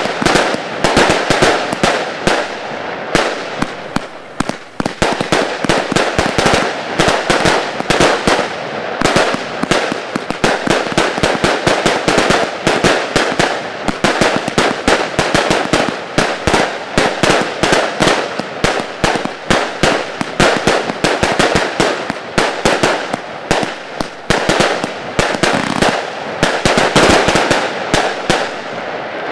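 Pangu Fireworks 'Spring Festival' 100-shot report cake firing: a dense, continuous run of shots and bangs, several a second, with a brief lull about four seconds in.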